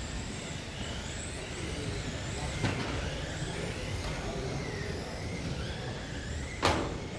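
Several 1/12-scale GT12 electric RC cars lapping a carpet track, their motors whining up and down in pitch as they accelerate and slow. A light knock comes about two and a half seconds in and a loud sharp knock near the end.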